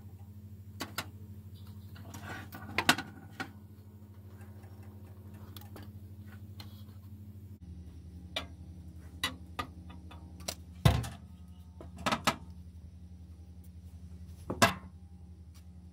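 Scattered clicks and knocks of a pot and the stove's control knobs being handled on an electric coil stove, over a steady low hum. A cluster of clicks comes early, and two louder knocks fall in the second half.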